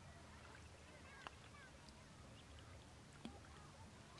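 Near silence: faint outdoor ambience with a few faint bird calls and two soft clicks, about a second in and about three seconds in.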